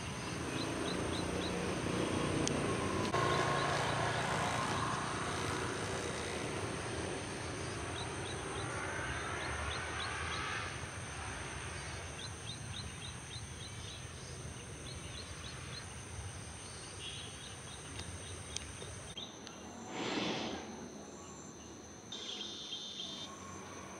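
Evening countryside ambience: insects drone steadily at a high pitch, with short runs of rapid chirps. A brief rushing burst comes near the end.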